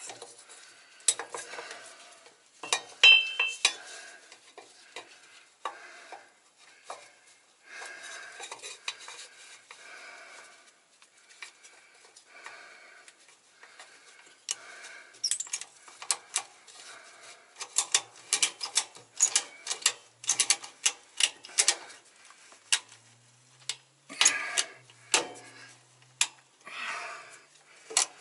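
A metal filter wrench clinking, rattling and scraping as it is fitted and worked onto a truck's air dryer filter cartridge, with many sharp irregular clicks and clanks. The cartridge is on too tight for the wrench to turn it.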